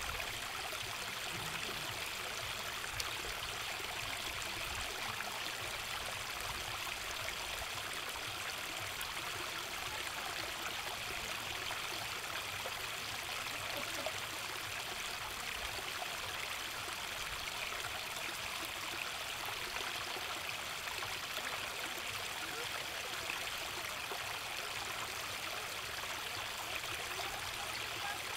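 Shallow stream running over a low rocky step, a steady splashing babble of water that stays even throughout.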